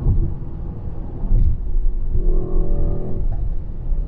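Car engine running with a heavy low rumble that grows louder about a second in, with a steady engine note standing out for about a second in the middle.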